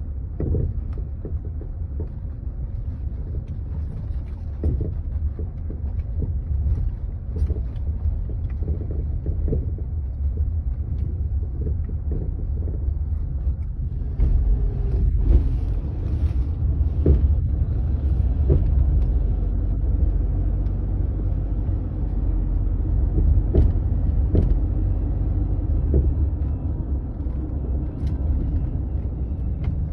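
Land Rover Freelander 2 driving over uneven asphalt: steady road rumble with repeated short knocks from the rear suspension as it goes over bumps and joints. The knock comes from a worn KYB rear shock absorber strut with play in it.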